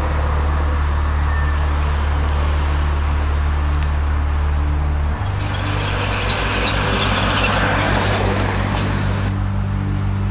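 Vehicle engine idling, a steady low hum that changes abruptly about five seconds in to a different low, fast-pulsing drone.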